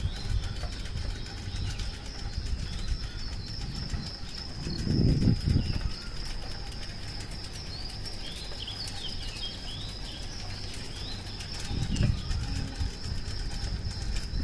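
Birds chirping at dawn: scattered short chirps, busiest about nine to ten seconds in, over a steady high-pitched tone. Twice, around five and twelve seconds in, a low rumble swells up and fades.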